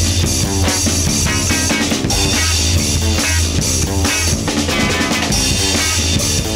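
Experimental rock music: a drum kit keeping a beat over a steady deep bass note, with busy higher instrument notes.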